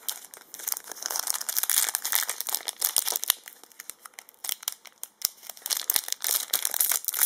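Foil wrapper of a Yu-Gi-Oh booster pack crinkling and crackling in the hands as it is worked open, with irregular sharp crackles throughout.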